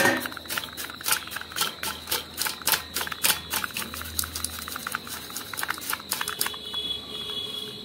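Dust being cleaned out of a computer SMPS (power supply): a quick, irregular run of short scratchy strokes and knocks, several a second. A faint steady whine comes in near the end.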